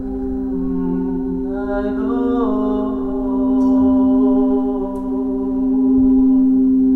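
Quartz crystal singing bowl held in a steady, sustained drone by a mallet circling its rim, while a voice sings a chanted melody over it.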